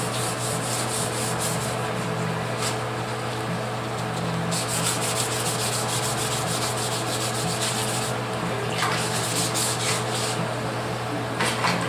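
Hand color sanding with 600-grit wet-or-dry paper on fresh gloss white Rust-Oleum enamel: quick back-and-forth scratchy strokes in runs with short pauses, knocking down orange peel in the paint.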